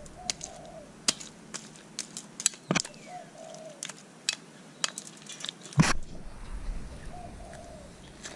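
Glittery slime being stretched and squished by hand, giving off irregular sticky pops and clicks, with one louder pop a little after halfway.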